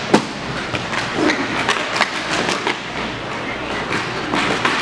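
Inline hockey play: sticks and puck clacking on a plastic tile rink floor in a run of sharp, irregular clacks. The loudest comes just after the start, and there is a cluster more near the end.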